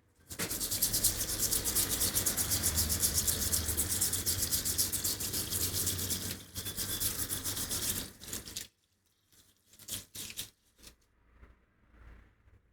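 Fast back-and-forth brush scrubbing on a stripped Land Rover Series 2 differential casing, a steady rasping that cuts off suddenly about nine seconds in. A few faint knocks follow.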